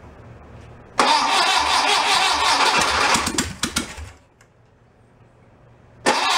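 Air-cooled VW Beetle flat-four engine cranked over by its starter, without starting: a burst of cranking from about a second in that goes ragged and dies out after about three seconds, then a second try starting near the end.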